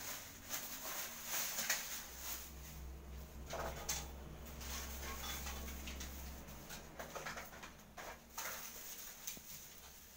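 Irregular rustling and small knocks of loose objects and plastic packets being handled and moved about, over a faint steady background hum.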